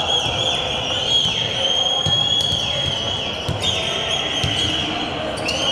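Basketball shoes squeaking on the wooden court floor in long, overlapping squeals, with a basketball being dribbled underneath and the hum of the sports hall.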